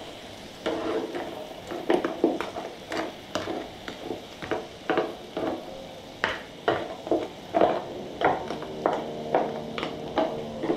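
Wooden spatula stirring and scraping shrimp across the hot plate of a Tefal Maxi Plancha griddle, in quick repeated strokes about two to three a second, over the steady sizzle of the frying shrimp.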